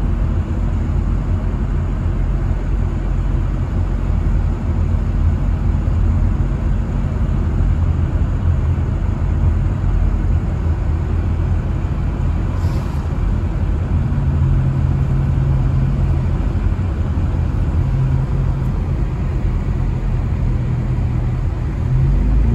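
Steady road noise inside a moving car: engine hum and tyres running on wet pavement. The engine note strengthens for a couple of seconds about two-thirds of the way through.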